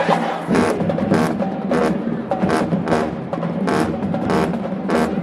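HBCU pep band playing: brass over a steady drum beat of about two hits a second.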